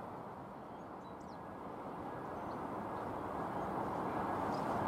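Steady outdoor rushing noise of distant vehicles, dipping about a second in and swelling again near the end, with a few faint bird chirps.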